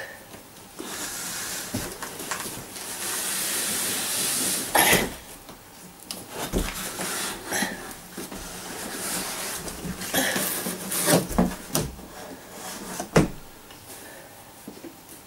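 A foam-wrapped banjo case being worked out of a long cardboard box. There are a few seconds of steady rustling and scraping, then a sharp knock about five seconds in and a run of knocks and crinkles between ten and thirteen seconds in, as the wrapped case bumps against the box.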